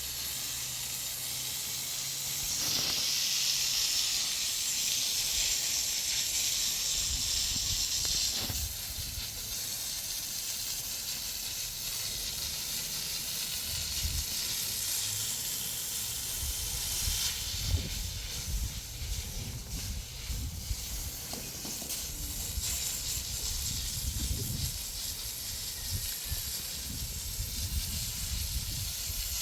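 Steady hissing noise, louder for a few seconds near the start, over irregular low rumbling.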